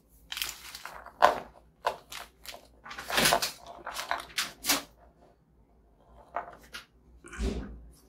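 Biscuit packaging being handled and opened: crinkling wrapper in short bursts of sharp crackles, with a lull of about a second and a half in the middle.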